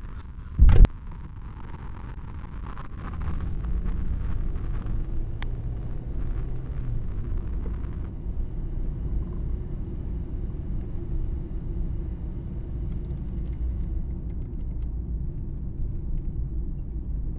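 A single loud thump under a second in, then the steady low rumble of a car being driven, louder from about three seconds in and cut off abruptly.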